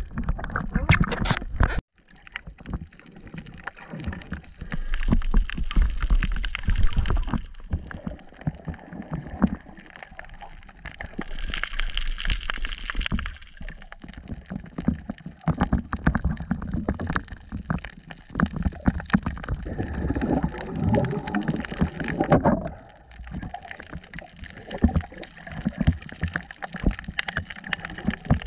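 Water sloshing and gurgling, with irregular knocks and clatter through it.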